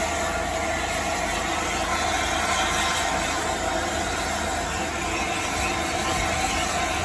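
LNER A4 Pacific steam locomotive 60007 Sir Nigel Gresley standing in steam, giving off a steady hiss with an even rumble beneath it.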